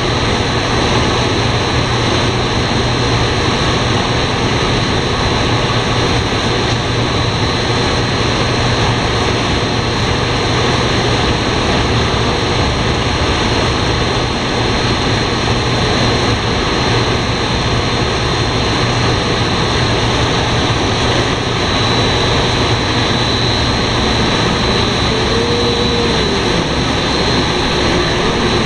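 Fried-snack extruder production line running: a steady, dense machine drone with a low hum and a thin high whine throughout.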